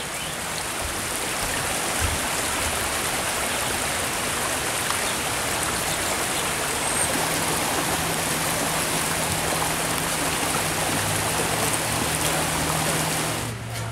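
Water running steadily down a stone-lined garden stream channel, splashing over boulders.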